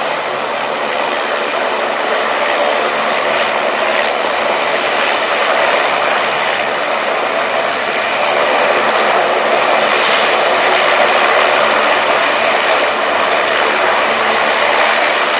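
Passenger hovercraft moving slowly on its air cushion: a loud, steady rush of lift-fan and ducted-propeller noise with engine hum underneath.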